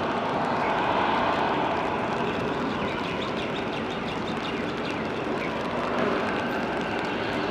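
Bombardier Dash 8 Q400's turboprop engines running at takeoff power as the airliner rolls and lifts off: a steady, even rushing drone heard from a distance, a little louder in the first second or two.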